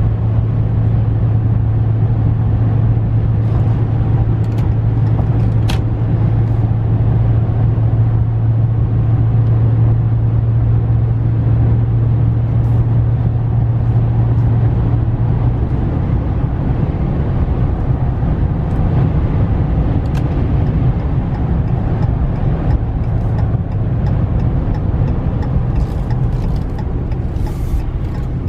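Cabin sound of a 2015 Ram pickup's 5.7-litre Hemi V8 cruising at highway speed: a steady low engine and road drone that changes to a rougher, broader rumble about halfway through.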